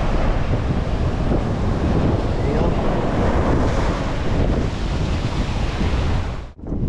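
Surf washing over a rocky reef shelf, with strong wind buffeting the microphone. The sound drops out suddenly near the end.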